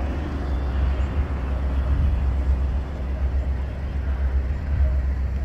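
Distant Cessna 172N's four-cylinder engine and propeller droning steadily on landing approach, under a heavy steady low rumble.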